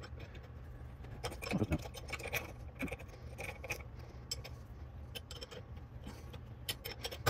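Scattered light metallic clicks and clinks of a steel wrench being fitted onto and turned on a hex bar in a seized brake caliper piston, over a faint steady low hum.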